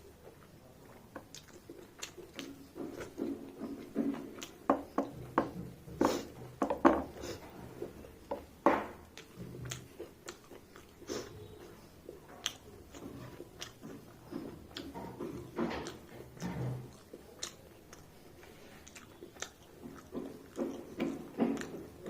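Close-up chewing and mouth smacking of a person eating a rice meal: irregular clicks and smacks, some sharper bites among them.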